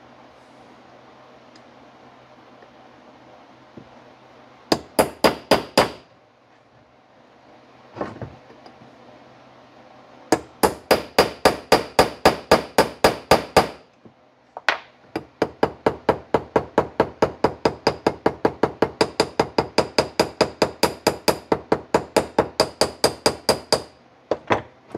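Small ball-peen hammer tapping a part into a Marvel Schebler carburetor body to seat it flush, with quick light metallic strikes at about five or six a second. There is a short burst, a single strike, and then two longer runs of tapping.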